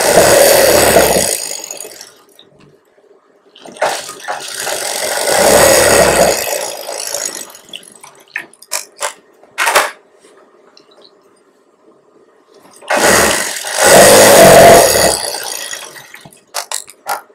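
Industrial sewing machine stitching a blouse side seam in three runs of two to three seconds each, speeding up and slowing down, with a few short clicks between the runs.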